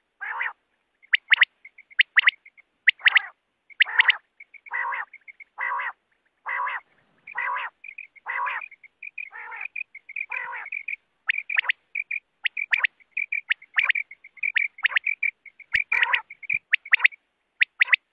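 Quail calling over and over: sharp, quick high notes in pairs and threes. In the first half they alternate with longer, rougher, lower calls about once a second. In the second half the sharp notes come faster and crowd together.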